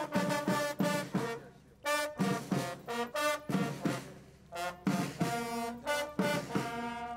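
Military brass band playing, trumpets and trombones sounding held notes in phrases that break off briefly about two seconds in and again past the middle.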